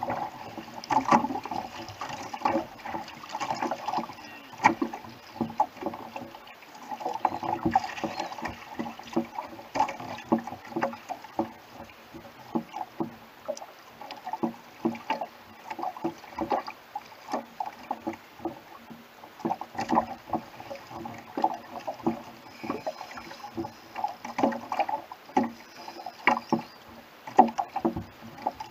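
Small waves slapping and splashing against the hull and outriggers of a Hobie Adventure Island sail kayak, a constant run of irregular knocks and splashes.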